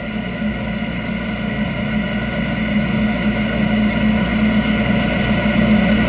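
Condensing boiler running at high fire: a steady hum of combustion blower and burner with several held tones, growing gradually louder while the gas valve's high-fire screw is opened half a turn to richen the flame.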